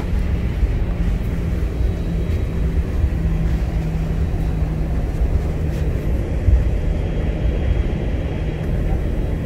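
Airbus A321 cabin noise while taxiing: a steady low rumble of the jet engines and airframe with a constant hum underneath, heard from inside the cabin.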